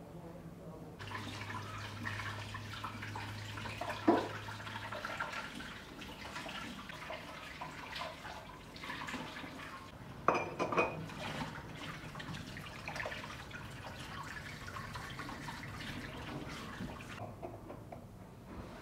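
Kitchen tap running in a thin stream into a stainless-steel sink, with a few sharp knocks and clinks at the counter, one about four seconds in and a small cluster near the middle.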